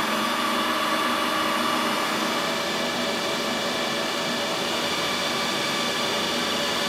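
HP ProLiant DL380 G4 server running: its cooling fans give a steady rush of air with several steady high whining tones over it.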